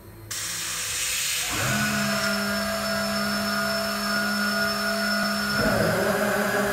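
Compressed air hissing steadily out of the air casters of a heavily loaded air caster transport platform as it floats. About a second and a half in, a steady whistling hum joins the hiss.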